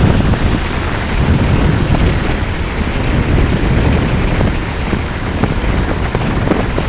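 Rushing wind buffeting the microphone on top of a moving truck, a loud, steady low rumble of air.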